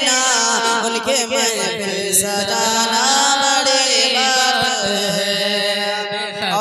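A man's voice singing a naat, drawing out long held notes with wavering, ornamented pitch.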